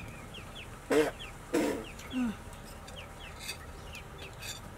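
Chicken clucking three short times about a second in, the last cluck dropping in pitch, over a steady run of faint, high, quick chirps.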